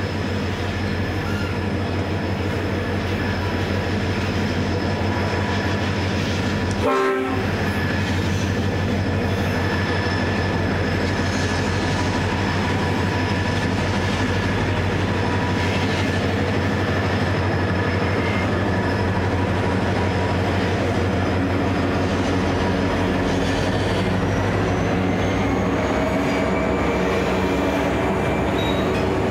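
Pair of diesel-electric freight locomotives hauling a loaded grain train, their engines running with a steady hum, the hopper wagons rolling behind. There is a brief sharp break about seven seconds in, and some tones rise in pitch near the end.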